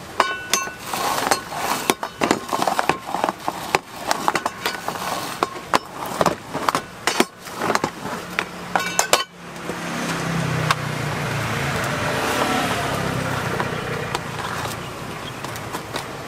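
A stainless-steel roller is rolled back and forth over sticky puffed rice in a metal tray, giving irregular clicks, knocks and crunches as it presses the rice cake flat. About nine seconds in, this gives way to a steady low rumbling noise.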